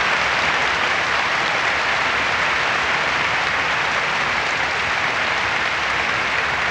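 Large audience applauding, a dense, steady clapping that holds at one level.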